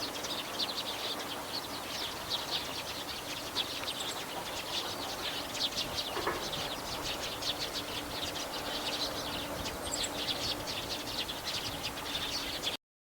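Mixed songbird chorus of small birds such as meadow buntings, skylarks and sparrows: a dense, continuous run of high chirps and trills. It cuts off abruptly near the end.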